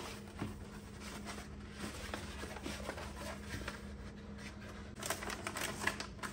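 Rolled drawer liner paper rustling and crinkling as it is handled over a wooden drawer. The sound is faint, gets busier about five seconds in, and sits over a faint steady hum.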